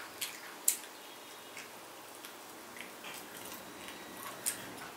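Chewing and biting on soaked chicken feet: a scatter of sharp, crunchy clicks a second or so apart, the loudest a little under a second in.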